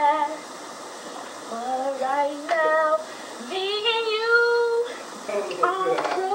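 A high-pitched voice singing in short phrases, with a long wavering held note in the middle.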